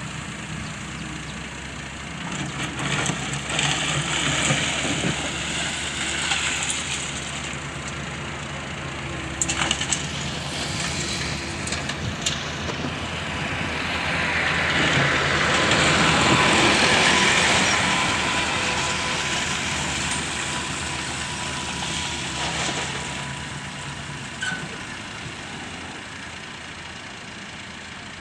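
Diesel engine of a Doosan Solar wheel excavator running steadily. The engine noise swells and rises for several seconds in the middle, then settles, and a few sharp knocks and clanks come through.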